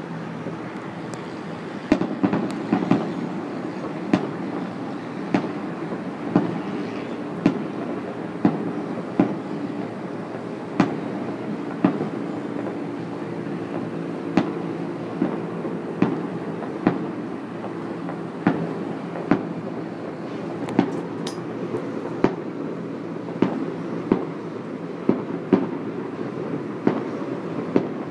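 Fireworks shells bursting in sharp bangs, about one a second from about two seconds in, over a steady low rumble.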